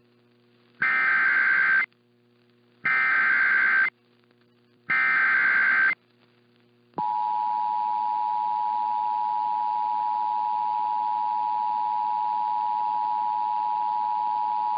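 Emergency Alert System activation: three one-second bursts of warbling SAME digital header data, about a second apart, then the steady two-tone EAS attention signal starting about seven seconds in. This is a station relaying a severe thunderstorm warning alert to other stations.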